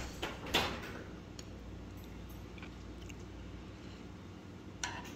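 Utensils clicking on a ceramic dish as food is laid on a kimchi leaf: a sharp click about half a second in, a few faint ticks, and another sharp click near the end.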